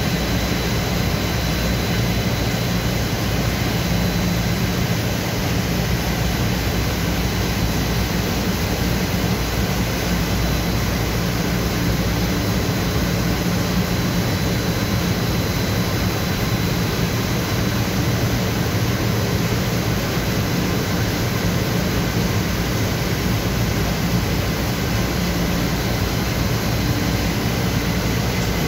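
Industrial web printing press for flexible packaging film running: a steady machine roar with a low hum and a faint high whine.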